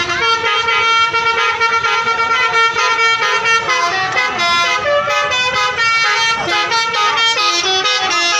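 Indonesian bus telolet horns, multi-tone musical air horns, sounding without a break: a held tone for the first few seconds under notes that change in short melodic steps, several horns overlapping.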